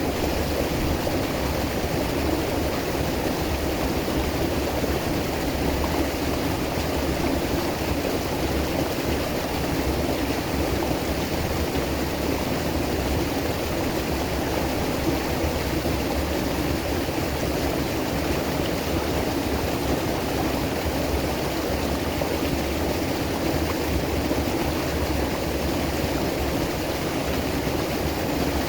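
River water rushing over rocks: a steady, unbroken rush, fullest in its low tones.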